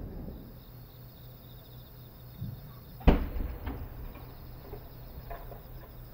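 A firework shell launched from its mortar with a single sharp bang about three seconds in, followed by a few faint pops. Crickets chirp steadily throughout.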